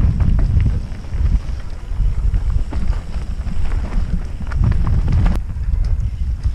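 Helmet-camera sound of a mountain bike descending a rough dirt trail at speed: wind buffeting the microphone in a constant low rumble, with the bike's rattles and scattered sharp knocks over the bumps.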